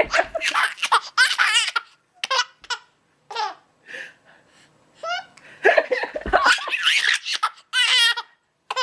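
A child laughing hard while being tickled: bouts of high-pitched giggles in quick repeated bursts, with short pauses for breath between them.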